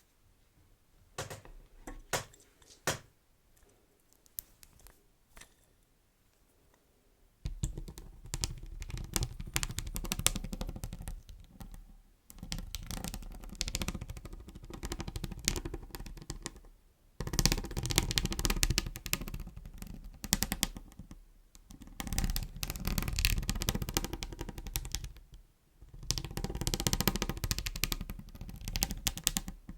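A few scattered light taps and clicks, then, about seven seconds in, crinkling of beeswax wraps in long bursts broken by short pauses.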